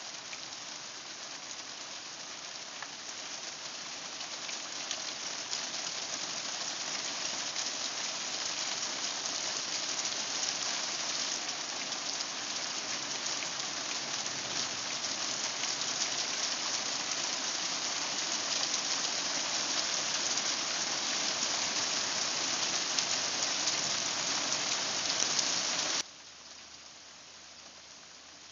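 Heavy rain falling in a thunderstorm, a steady hiss that slowly grows louder, then drops abruptly to a quieter rain hiss near the end.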